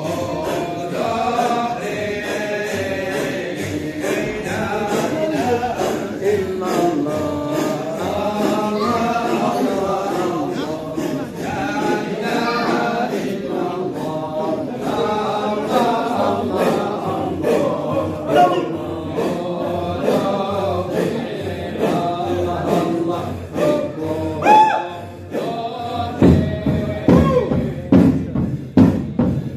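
A group of men chanting a devotional dhikr together, repeating 'Allah' in sustained sung phrases. Near the end the chant breaks into a rhythmic pulse of about two beats a second.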